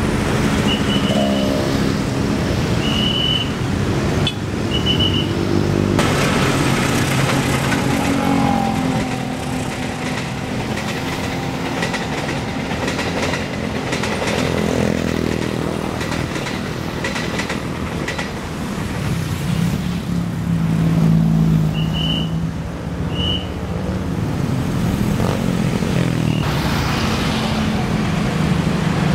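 Long-distance passenger train of stainless-steel coaches running past at close range, wheels clattering over the rail joints, with a few short high chirps in the first few seconds and again later. Near the end, an electric commuter train (KRL) approaches.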